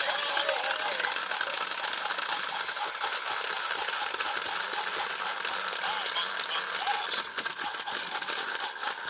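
Two battery-powered toy train engines whirring steadily as they push head to head, their motors and gearing straining with a faint regular clicking.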